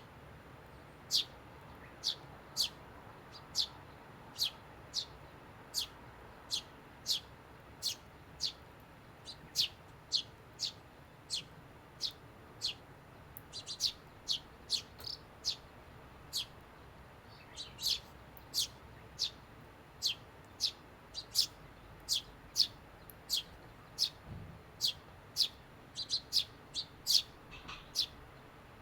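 Eurasian tree sparrows chirping: short, high chirps repeated steadily about one to two a second, now and then in quick clusters.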